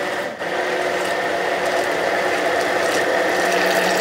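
Cuisinart stick (immersion) blender running steadily in a beaker of strawberry purée while olive oil is poured in, emulsifying it into a vinaigrette. The motor dips for a moment just after the start.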